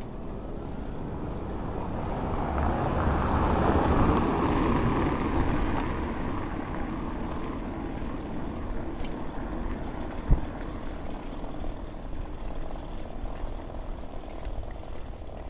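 Wind buffeting the microphone and tyre rumble from a bicycle riding over brick pavers. A swell of noise builds and fades around three to five seconds in, and there is a single sharp click about two-thirds of the way through.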